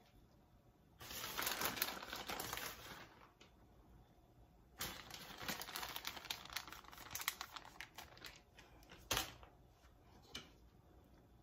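Plastic bag of shredded Parmesan crinkling and rustling as the cheese is shaken out of it, in two stretches, followed by a sharp knock about nine seconds in.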